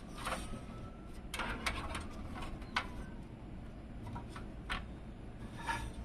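Irregular light clicks, knocks and brief scrapes of hard parts being handled, as in unpacking a PC case.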